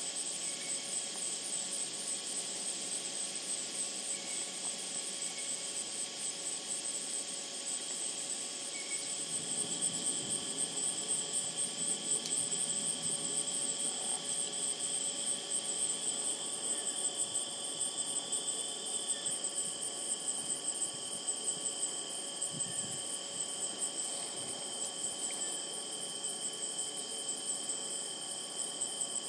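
Late-summer marsh insect chorus: a steady, high, pulsing trill that continues without a break, with fainter steady trills lower in pitch beneath it.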